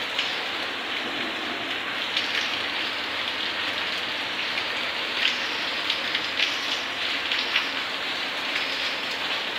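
Heavy rain pouring steadily, with frequent sharp spatters of drops hitting nearby surfaces.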